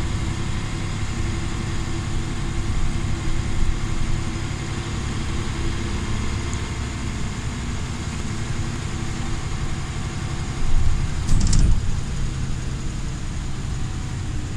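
Volvo B10BLE bus's six-cylinder diesel engine and road noise heard from inside the saloon while the bus is driving, steady throughout. About eleven seconds in there is a louder thump and rattle.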